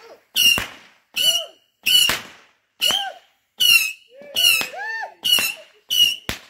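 A firework repeater, such as a roman candle or cake, firing shot after shot at about one every three-quarters of a second. Each shot is a sharp pop with a brief shrill tone that fades quickly.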